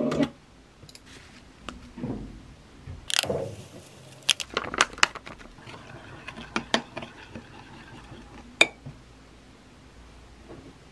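Metal spoon clinking against a ceramic mug while stirring hot chocolate: a run of sharp clinks, the loudest one coming near the end, with a soft swish before them.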